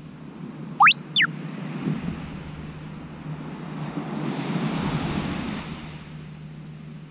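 Surf washing on a sandy beach, with wind buffeting the microphone; the wash swells louder about four seconds in and eases off again. About a second in, a brief, loud whistle glides sharply up and then back down.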